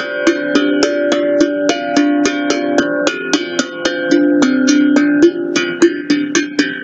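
Steel tongue drum tapped with the fingers: a fast, even run of ringing notes, about five strikes a second, each note still sounding as the next one starts.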